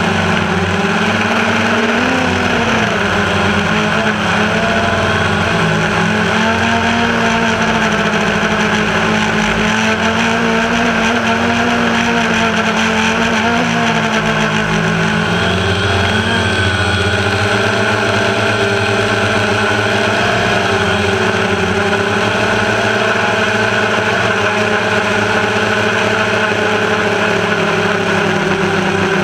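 Multirotor drone's electric motors and propellers whining steadily, heard from the camera on board, the several tones drifting slowly up and down in pitch together.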